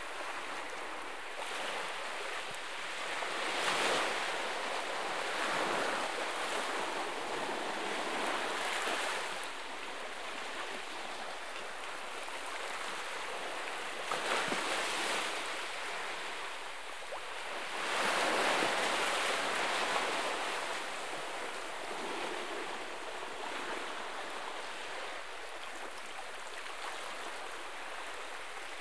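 Small waves lapping and washing onto the shore around fallen tree roots, a steady hiss of water swelling in irregular surges every few seconds, the biggest wash about two-thirds of the way through.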